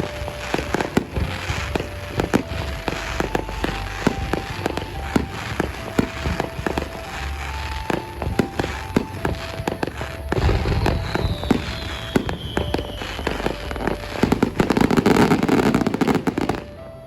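Fireworks going off: repeated bangs and crackles, a whistle falling in pitch about ten seconds in, and a louder, denser burst near the end, with light background music.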